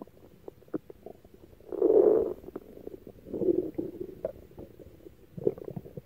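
Stomach growling: irregular gurgling rumbles with small clicks. The loudest swell is about two seconds in, with smaller gurgles around three and a half and five and a half seconds.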